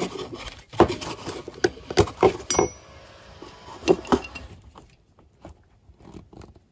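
Metal parts clinking and knocking as they are handled on a bench: a welded intake manifold and the mating carburetor manifold being picked up and set against each other. There are a dozen or so sharp taps over the first four seconds, then quieter handling.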